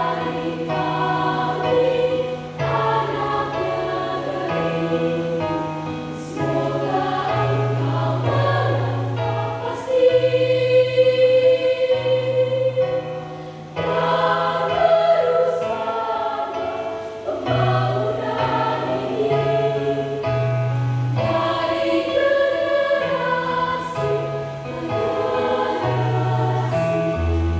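School choir singing in parts, with steady low bass notes held underneath that change every second or two.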